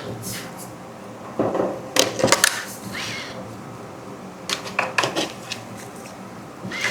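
Small metal tools and 3D printer parts being handled, giving sharp clicks and rattles in three short clusters: about a second and a half in, around four and a half seconds, and near the end.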